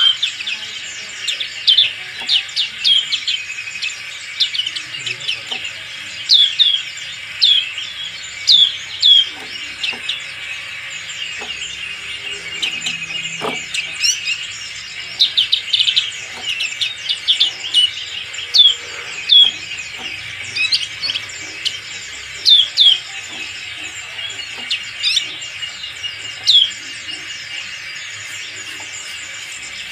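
Black-capped white-eye singing: runs of short, sharp, high chirps, each sweeping down in pitch, coming in quick bursts with pauses between.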